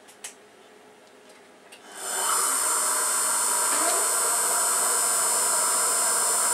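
1986 Emco F1 CNC milling machine's spindle starting up about two seconds in, then running with a steady high-pitched whine. A short rising tone near four seconds as an axis motor moves the table to position the spotting drill.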